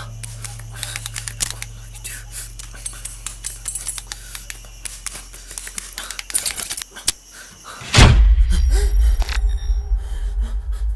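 Film sound design: a low drone that fades away under scattered clicks, then a sudden loud hit about eight seconds in, followed by a deep rumble.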